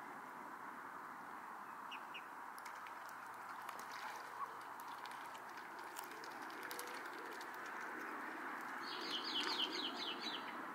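Bird chirping: a couple of short high chirps, then near the end a quick run of about seven falling high notes, over a steady outdoor hiss.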